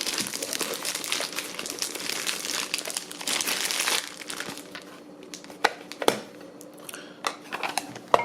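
Packaging crinkling and rustling as it is handled during unboxing, dense for about four seconds, then quieter with scattered clicks and a sharp tap near the end.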